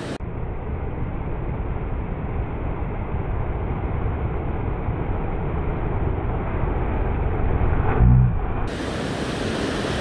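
Waves breaking and washing over a rock shelf, under a steady rumble of wind on the microphone, with a brief low hum about eight seconds in.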